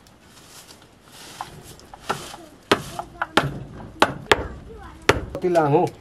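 Dry wooden sticks being knocked and struck with a hand tool: about half a dozen sharp wooden knocks from about two and a half seconds in. A short wavering voice sounds near the end.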